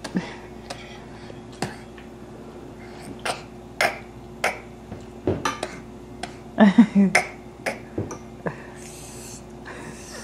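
A young child's mouth sounds: irregular short, sharp clicks and pops as she tries to sound out letters, with a brief voiced burst about two-thirds of the way through.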